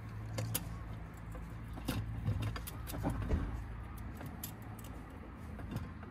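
Metal clinks and light taps from a Coleman gas lantern's wire bail handle, hood and globe being handled and fitted together, a few separate clicks spread over several seconds. A low steady rumble runs underneath.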